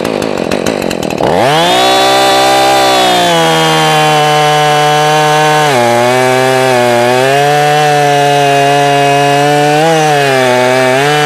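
Husqvarna 445E two-stroke chainsaw revving up to full throttle about a second in, then cutting through a log. The engine pitch drops and wavers as the chain bites under load.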